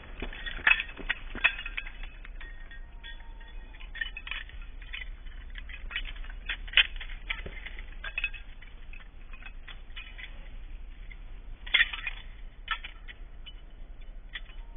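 Metal hardware on a Siberian husky's collar and leash jingling and clinking as the dog moves, in irregular clusters of sharp tinkles, loudest near the start and about twelve seconds in.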